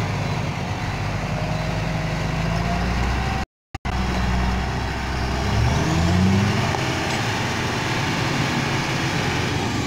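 Tata 3515 tipper truck's diesel engine running steadily, then revving up about two seconds after a brief dropout a third of the way in, as the stuck truck strains to climb out of the mud.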